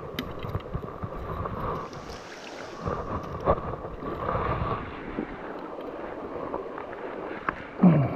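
Creek water running over rocks, with rustling and knocks of hands and gear close to the microphone. A short, loud, low sound falls in pitch just before the end.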